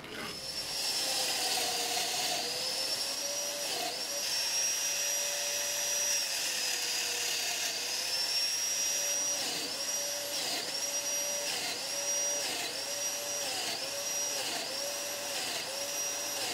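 Festool Domino joiner running as it cuts mortises in wooden shelf slats. Its motor gives a steady whine over a hiss. The pitch dips briefly a few times, then in a quick regular run about twice a second from about halfway.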